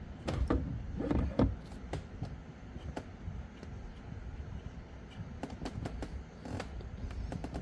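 Light clicks, taps and scrapes of steering-wheel parts being handled and fitted by hand, a few sharper knocks in the first second and a half and more near the end.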